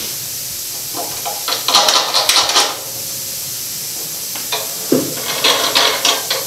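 Metal clinks and knocks as a turbocharger center cartridge is fitted and clamped into a high-speed balancer's fixture, in two bursts about three seconds apart, over a steady hiss.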